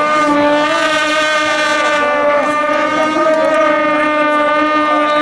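A horn blowing one long, steady, loud note that cuts off just after the play ends, over faint crowd voices.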